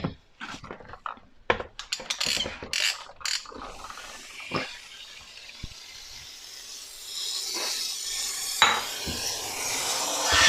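Scattered hard clicks and knocks of plastic parts being handled in the dishwasher's drain area, then a steam cleaner's hiss starting about seven seconds in and growing louder as steam is blown into the drain to clear a blockage.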